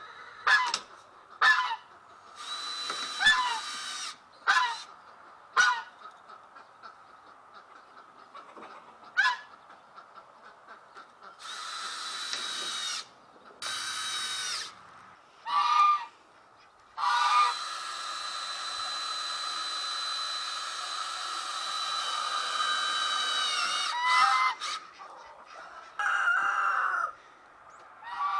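Geese honking in short, loud calls, repeatedly over the first few seconds and again later. Between them a cordless drill runs in short bursts and then one long run of about seven seconds in the second half, winding down as it stops.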